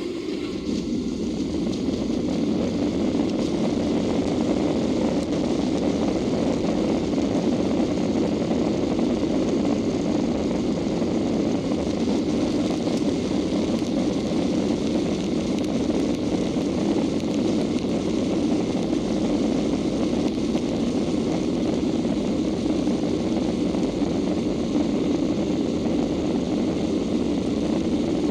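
Boeing 737-800's CFM56 turbofan engines running at takeoff thrust: a loud, steady rumble and rush that swells over the first couple of seconds and then holds steady.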